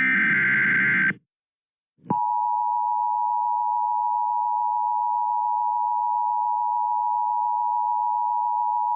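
The last second of an Emergency Alert System SAME header, a harsh burst of modem-like data, cuts off. After a second of silence, the EAS attention signal starts about two seconds in: a steady two-tone sound from a pair of close tones, held unchanged.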